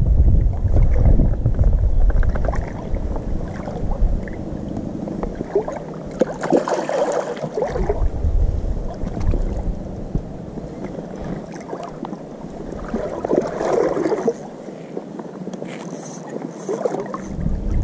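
Hooked northern pike splashing at the water's surface, in two bouts about six and thirteen seconds in. Wind buffets the microphone in low rumbles, most strongly at the start and end.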